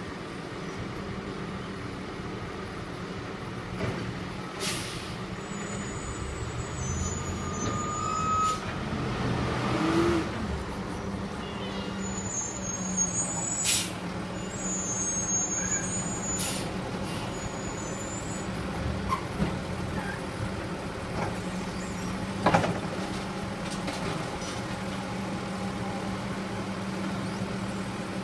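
Diesel engine of an automated side-loading garbage truck running steadily while its hydraulic arm grips a wheeled garbage cart, lifts it and tips it into the hopper. Sharp clanks of the cart and arm come every few seconds, the loudest near the end as the raised cart is emptied.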